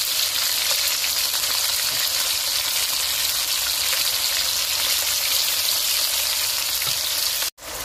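Marinated pork and chicken pieces sizzling in hot oil in a nonstick pan: a steady frying hiss as the meat browns. It cuts off abruptly near the end.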